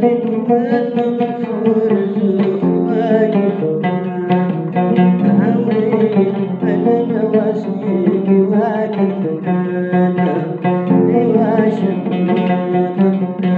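A long-necked plucked lute played solo: a quick melody picked on the upper strings over low notes that ring on and change every few seconds.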